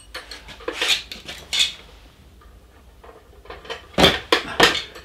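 Metal clinks and knocks from a hanging dial spring balance and its hooks being handled: a few scattered clicks, then a louder cluster of three knocks near the end.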